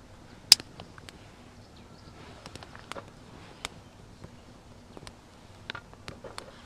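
Small wood fire crackling in a folding metal fire pit: scattered sharp, irregular pops, with one loud pop about half a second in.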